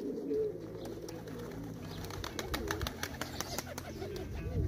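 Domestic pigeons cooing in low, wavering calls, with a run of short sharp clicks through the middle.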